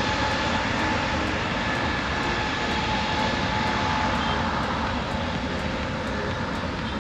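Jet airliner's engines, a steady roar with a thin whine running through it, easing off slightly toward the end.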